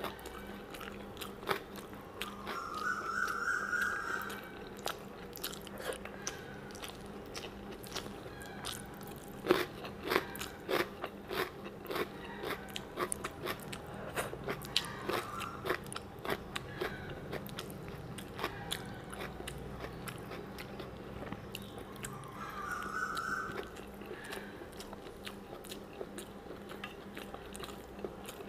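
Close-miked eating sounds: a person chewing and biting food eaten by hand, with many sharp, wet mouth clicks and smacks.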